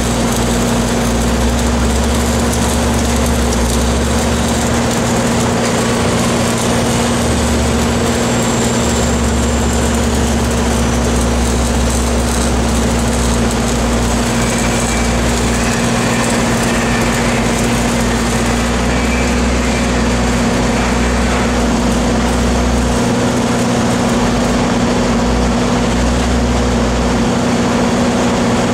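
Engines running steadily, their low note coming and going every few seconds, over the hiss and crackle of stick (SMAW) arc welding on a large steel pipe joint.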